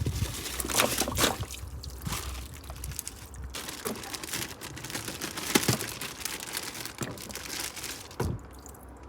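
Irregular crinkling and light knocks of household items being handled during cleaning.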